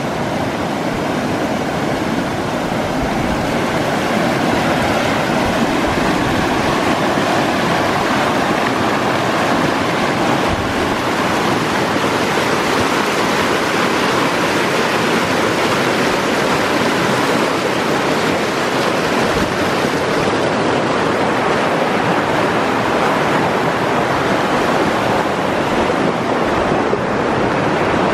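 Fast mountain stream rushing in white water, loud and steady, heard from close above while crossing it on a log footbridge.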